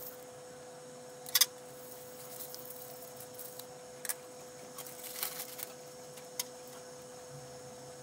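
Light handling sounds as a small circuit card's chip is wiped with a tissue: a few short clicks and rustles, the sharpest about a second and a half in, over a steady faint hum.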